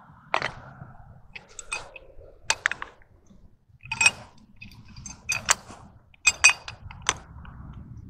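Sharp metallic clinks and clicks, about eight spread irregularly, with a brief ring to each: a pipe wrench and a metal threaded fitting being handled and worked onto the end of a PVC drop pipe.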